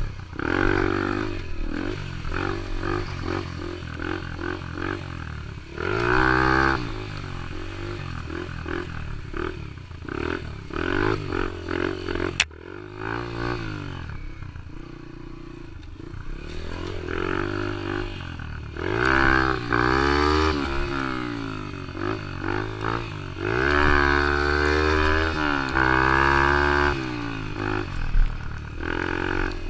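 Yamaha TT-R125 dirt bike's single-cylinder four-stroke engine being ridden, its pitch rising and falling again and again as the throttle is opened and closed, with louder revs in several stretches. There is one sharp click near the middle.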